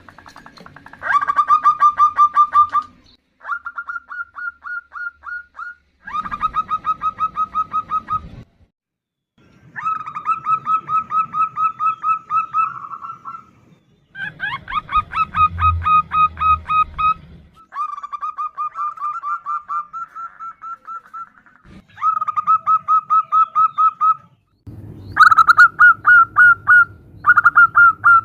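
Female zebra doves calling and answering each other, a call used to lure males: about eight phrases, each a rapid run of short clipped notes lasting two to three seconds, with brief pauses between.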